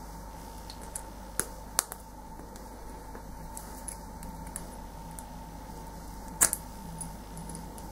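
Small metallic clicks of a screwdriver and a retaining clip on a brass tap cartridge as the clip is worked back into place. A few scattered clicks, two close together about a second and a half in and the loudest, a double click, near the end, over a steady background hum.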